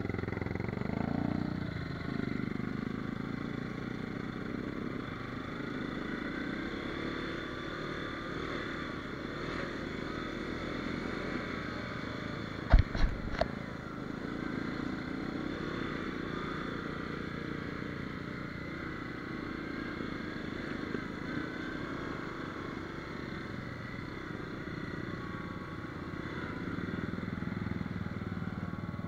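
ATV engine running steadily as the quad rides along a gravel trail. A cluster of two or three sharp knocks comes a little before the halfway point.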